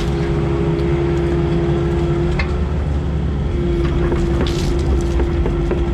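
Heavy equipment engine running steadily under work, with a constant high whine over the low drone. Scattered sharp cracks and clicks sound over it.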